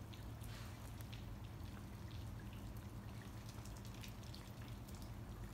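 Light rain dripping and pattering on a slushy, icy lane: scattered faint ticks of drops, over a steady low hum.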